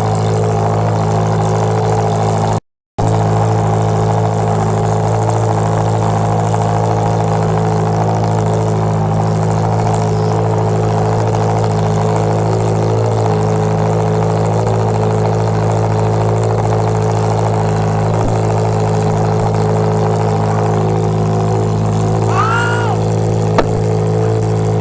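Ferrari 360 rally car's V8 idling steadily while warming up, holding one even pitch with no revs. The sound cuts out completely for a moment about three seconds in, and near the end a short whistle-like glide and a single click are heard over the engine.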